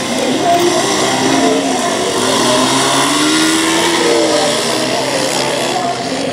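Several off-road military motorcycles running at low speed, their engines revving and easing off so the pitch rises and falls, with more than one engine audible at once.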